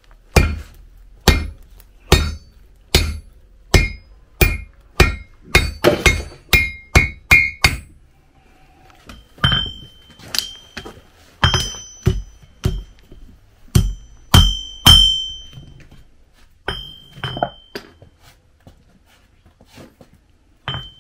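Blacksmith's hand hammer striking a red-hot iron bar on an anvil, forging a horseshoe by hand: steady blows about one a second that quicken into a fast run, a short pause, then a second series of blows that leave a clear ringing tone, thinning out to a few last strikes near the end.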